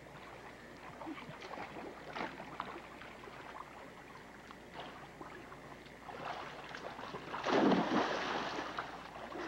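A person jumping off a diving board into a swimming pool: one loud splash about seven and a half seconds in, then churning water that dies away. Before it there is only faint low background noise.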